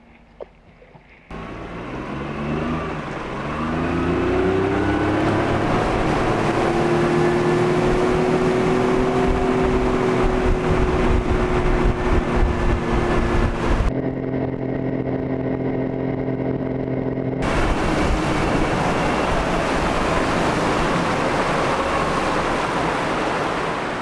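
A boat's motor running under way. It starts suddenly about a second in and speeds up, rising in pitch over a few seconds, then holds a steady speed with rushing wind and water noise. The sound goes duller for a few seconds about two-thirds through.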